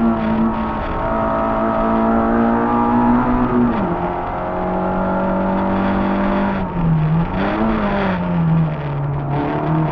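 Peugeot 106 rally car's 1.3-litre four-cylinder engine heard from inside the cabin, running at high, steady revs; the revs drop about four seconds in, dip and flare briefly near seven seconds, then hold lower.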